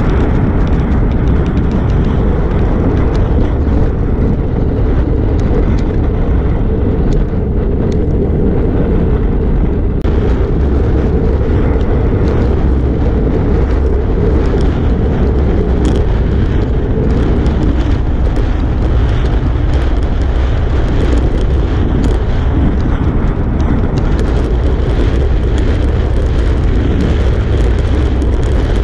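Steady, loud wind rumble buffeting a GoPro Hero5 Black's microphone as a road bike is ridden at around 26 to 31 mph.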